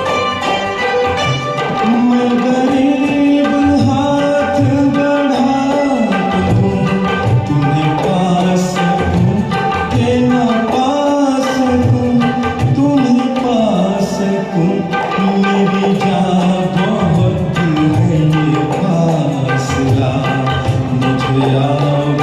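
Hindi film-song karaoke music: a tabla rhythm under a held, gliding melody line.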